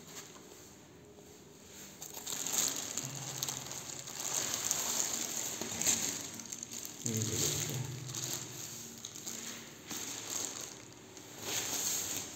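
Thin clear polythene bag crinkling and rustling in irregular bursts as it is pulled open and unwrapped from a grape plant's stem and root ball.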